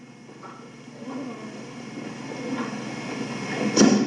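One sharp smack near the end: a karate roundhouse kick landing on a partner. Before it there is only a low, steady hum.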